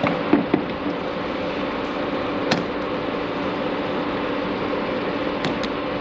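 A few sharp clicks and light knocks from car door handle parts being handled, over a steady background hum. Two clicks come near the start, one about two and a half seconds in, and two close together near the end.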